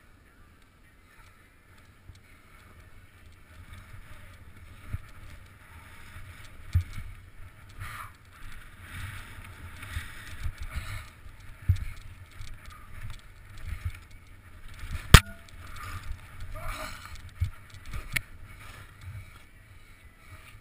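Skis sliding and chattering through chopped powder, with wind buffeting the camera microphone and irregular knocks as the skis hit bumps. It grows louder after the first few seconds, with a sharp clack about fifteen seconds in.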